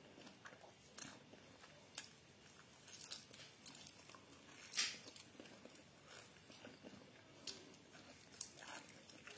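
Faint mouth sounds of a person biting and chewing food eaten by hand, with soft smacks and clicks scattered throughout and one sharper click about five seconds in.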